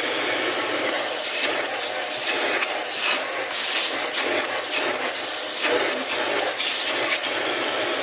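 Bosch ProPower 2500 W canister vacuum cleaner running on a test after repair, its motor at full speed with a steady loud rush of air. The hiss swells and eases again and again, and the machine works properly.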